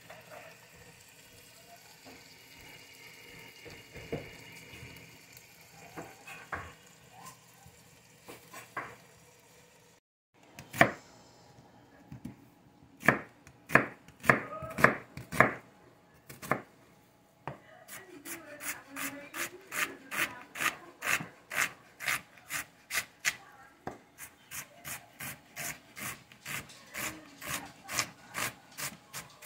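Chef's knife chopping an onion on a white plastic cutting board, starting about a third of the way in. A few separate cuts come first, then steady rhythmic chopping at about two to three strikes a second, quickening near the end.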